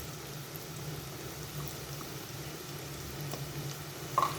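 Tempeh pieces frying in hot oil in a pan, a steady sizzling and bubbling, over a low steady hum. A short clink of a utensil near the end.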